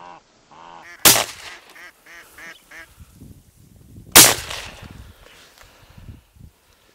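Two shotgun shots about three seconds apart, each with a short fading tail, with ducks quacking in a quick series between them.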